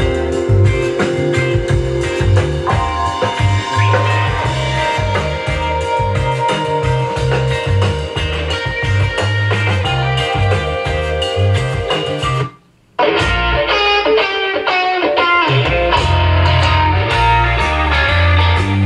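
Guitar music with a strong bass line playing through a homemade Bluetooth boombox's speakers. About two-thirds of the way in, the sound cuts out for about half a second, then resumes.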